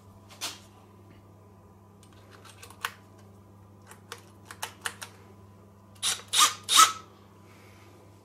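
Sharp metallic clicks of a steel screwdriver bit holder with a quick-release sleeve being handled and fitted to a cordless drill driver. There are scattered single clicks, a few small ticks, then three louder clicks with a brief metallic ring about six seconds in. A steady low hum runs underneath.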